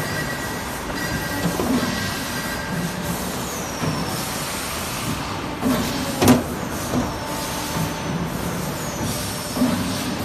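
500-ton hydraulic jigsaw-puzzle die-cutting press running through its automatic cycle: a steady machine noise with a short falling whistle about every five seconds and one sharp bang about six seconds in as the press strokes and the die cuts the board.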